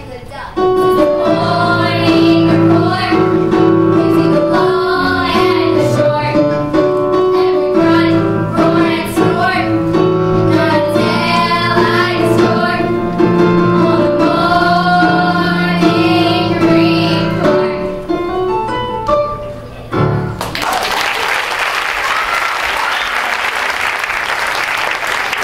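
Young girls singing a song with instrumental accompaniment; the music stops about twenty seconds in and the audience breaks into applause.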